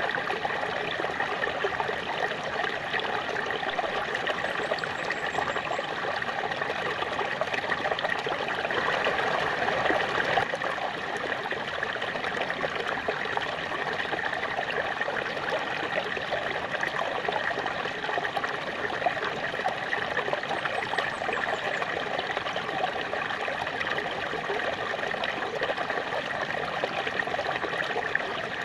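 Small waterfall splashing and trickling in a steady, continuous wash of water.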